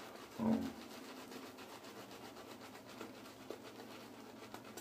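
Merkur 34C double-edge safety razor scraping through lathered stubble on the cheek: faint, rapid rasping strokes. A brief vocal sound comes about half a second in.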